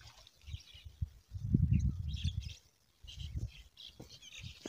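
Small birds chirping in short, scattered calls, with low rumbles on the microphone about a second and a half in and again just past three seconds.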